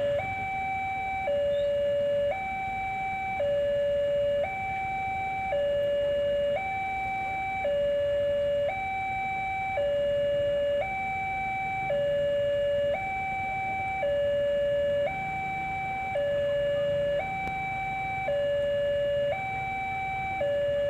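Railway level-crossing warning alarm: an electronic two-tone signal alternating steadily between a higher and a lower note, about a second each, warning that the crossing is closed for an approaching train.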